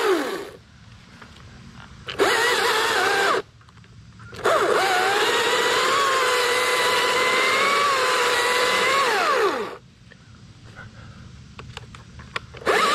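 Husqvarna 540i battery top-handle chainsaw running in three bursts: a short one ending about half a second in, another about two seconds in, and a long five-second run from about four and a half seconds. Each burst is a steady motor-and-chain whine that drops in pitch as the trigger is released.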